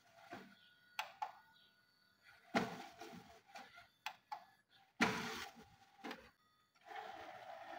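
Faint mechanical handling sounds: a few sharp clicks or knocks, each fading over about a second, then a steadier mechanical whirr from near the end.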